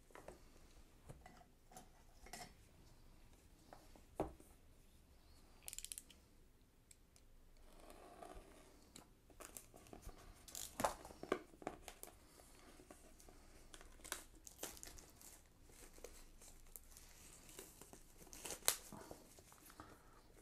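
Product packaging being opened by hand: faint, scattered clicks, taps and rustles of the box and its contents, with a brief louder rustle about six seconds in.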